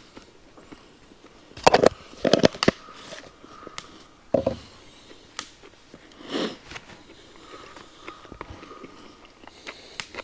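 Handling noise from a wireless clip-on microphone being fiddled with close up: a quick run of loud knocks and rubs a couple of seconds in, another knock a little later and a short breathy rustle near the middle. The microphone has a broken piece.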